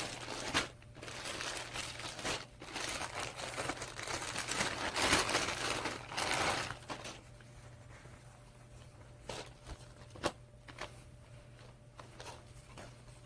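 Parcel packaging crinkling and tearing as it is opened by hand and a garment is pulled out. The rustling is loudest over the first several seconds, then drops to softer handling with a few light ticks.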